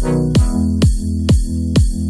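Background electronic music with a steady kick drum, about two beats a second, over a sustained bass line and synth chords.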